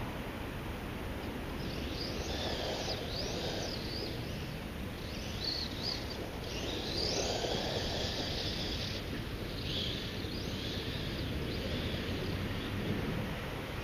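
Kyosho Scorpion XXL RC buggy with a brushless motor run by a VESC controller, driving fast on grass: a high motor whine rises and falls in pitch as it speeds up and slows, in several runs, loudest about seven seconds in, over a steady background rumble.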